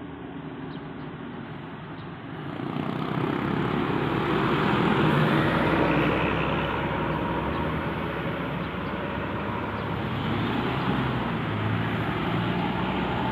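A large bus driving past, its engine and tyre noise growing louder about two seconds in, peaking mid-way, then easing to a steady drone.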